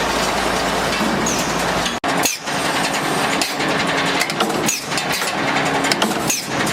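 Busbar punching and shearing machinery running, a steady mechanical noise with a low hum. It breaks off abruptly about two seconds in, then runs on with a repeating cycle of dips and short high chirps.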